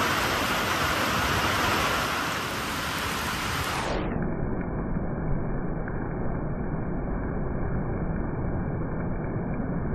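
Heavy monsoon rain falling steadily, a dense even hiss. About four seconds in the sound turns duller and more muffled as the rain goes on.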